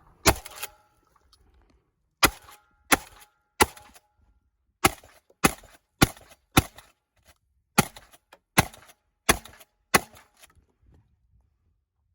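Shotgun fired in quick succession, about a dozen shots with two short pauses between strings. Several shots are followed by a brief metallic ring, typical of steel targets being hit.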